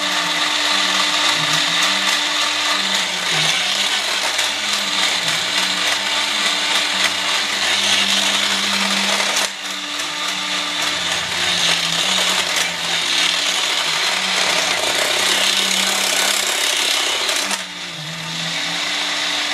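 Robot 2001 toy robot's small electric motor and plastic gears running steadily, with two brief dips in the sound, about halfway through and near the end.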